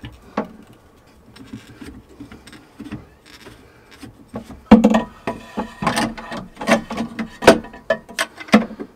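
Plastic union valve being screwed by hand onto an aquarium return pipe: a few faint clicks at first, then from about halfway a quick run of sharp plastic clicks and knocks as the fitting is turned and seated.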